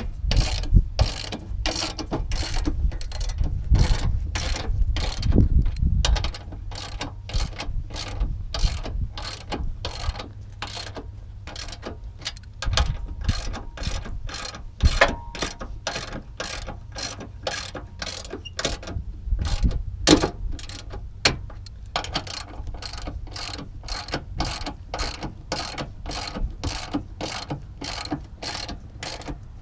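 Hand ratchet with a 13 mm socket clicking in an even rhythm, about two clicks a second, as nuts are run down and snugged onto the strut tower studs.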